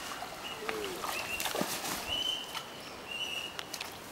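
A bird calling over and over with a short, level, high whistled note about once a second. Faint knocks are heard between the calls.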